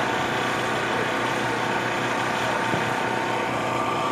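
An engine running steadily, an even hum that does not change.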